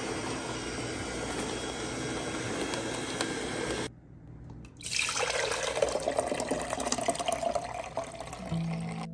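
Liquid pouring and running steadily, in two stretches with a short break near four seconds. A few musical notes come in near the end.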